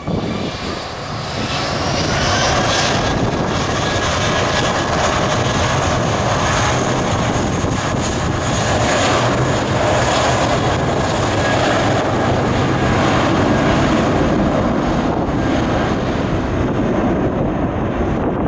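A loud engine running steadily, with a whine that rises over the first couple of seconds and then holds.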